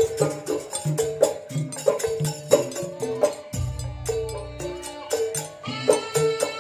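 Live traditional percussion music accompanying pencak silat: quick drum strokes and struck pitched notes in a steady rhythm, with a deep low tone about three and a half seconds in. A long held high tone joins near the end.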